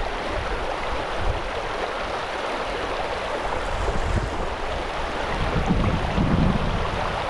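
Shallow creek water running over a gravel and cobble riffle, a steady rushing, with irregular low rumbles underneath that swell about four seconds in and again near the end.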